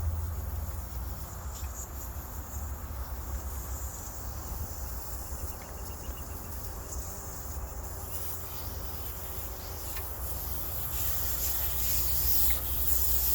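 Air hissing out of an e-bike tyre's Schrader valve as the valve core is unscrewed, the hiss growing louder near the end, over a steady low rumble.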